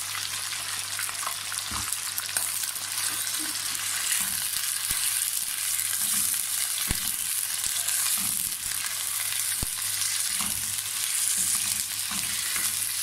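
Meat and fresh ginger-garlic paste sizzling in hot oil in a nonstick karahi, stirred with a metal spoon. The steady frying hiss is broken by a few sharp knocks of the spoon against the pan.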